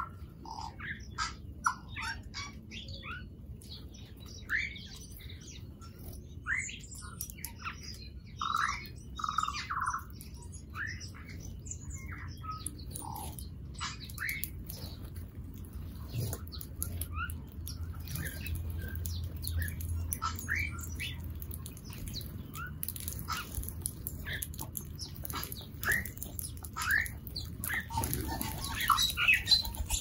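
Many small birds chirping, short separate calls coming thick and fast, over a low steady rumble. A deeper steady hum joins in about halfway through.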